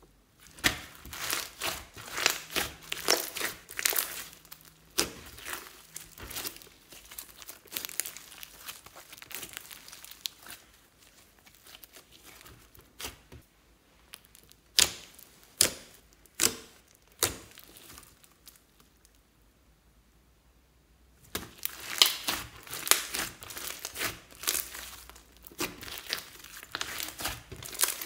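Glossy slime mixed with foam beads being pressed and kneaded by hand, giving sticky clicking and popping crackles in dense clusters. The pops thin out in the middle, stop for a few seconds about two-thirds through, then return thickly.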